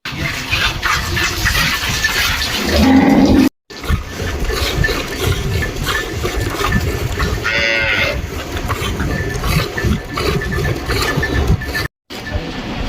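Cattle in a shed: one cow gives a deep moo about three seconds in, and a shorter, higher call follows near the middle. Steady clatter and rustle of the shed underneath.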